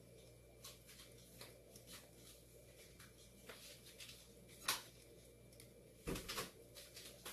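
Quiet small room with faint scattered clicks and knocks from someone moving about out of sight. There is a sharper click a little before five seconds in, and a louder cluster of knocks and thumps about six seconds in.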